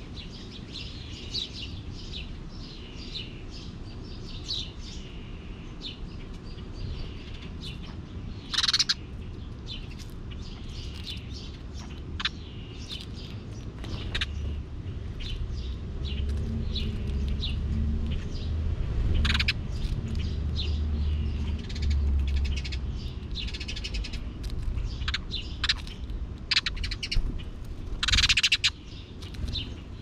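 Small birds chirping and twittering throughout, with two short, loud, harsh sounds, one about nine seconds in and one near the end. A low rumble comes up in the middle for several seconds.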